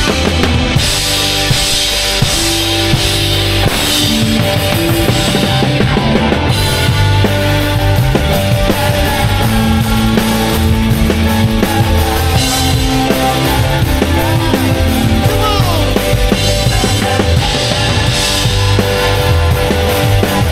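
A rock band playing live, with the drum kit up front: kick drum, snare and cymbals driving a steady beat under bass and electric guitar.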